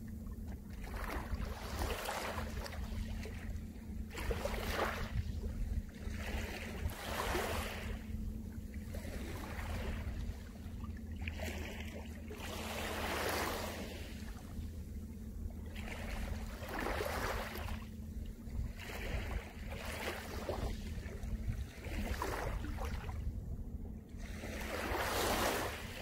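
Gentle sea waves lapping onto a pebble beach, a fresh swish of surf every second or two, over a steady low rumble.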